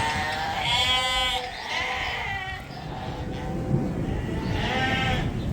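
Newly weaned lambs bleating, several calls one after another, calling for their mothers after weaning.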